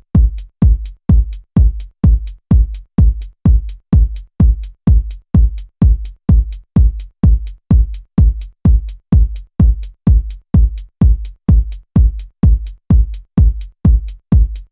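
A lone drum-machine kick drum from an electronic techno track, beating steadily about twice a second. Each hit is a deep boom with a sharp click on top, with no other parts playing.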